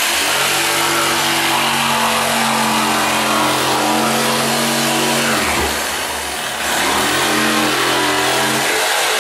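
Corded jigsaw running and cutting through a washer pan's floor around the drain hole. Its motor sags in speed a little past halfway and picks up again about a second later.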